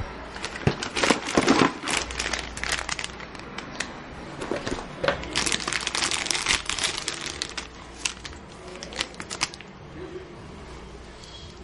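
Clear plastic bags crinkling and rustling as they are handled, in irregular crackles that are busiest about a second in and again around six to seven seconds in.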